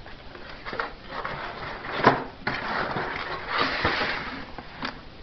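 Close rustling and knocking handling noise, with one sharp knock about two seconds in and a longer scraping rustle a little later.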